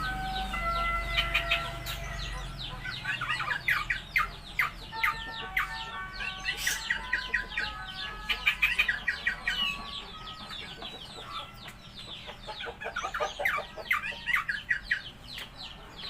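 Songbird singing a rapid, varied song of held whistles and quick sweeping notes, in bouts that thin out a little around the middle and pick up again near the end.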